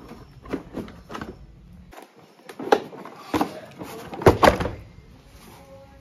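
The plastic outer housing of a Kärcher K3 pressure washer being worked loose and lifted off. It gives a series of plastic knocks and clunks, the loudest a little under three seconds in and again just past four seconds.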